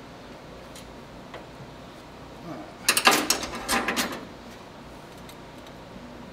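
Metal hand tools clicking and rattling against the ignition coil's terminal and nut, a burst of rapid clicks lasting about a second, about three seconds in.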